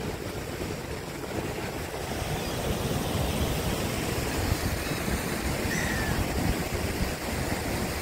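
Black Sea surf washing onto a sandy beach: a steady rush of breaking waves.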